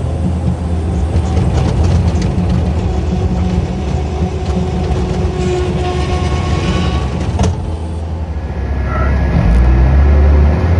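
A large engine running steadily, with one sharp click about seven seconds in.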